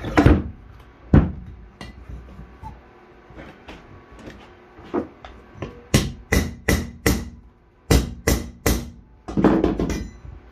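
Hand hammer striking a metal bracket on a small steel anvil, bending it to shape. Two heavy blows at the start, then a quick run of about seven sharp, ringing strikes from about six seconds in, and a brief scuffing sound near the end.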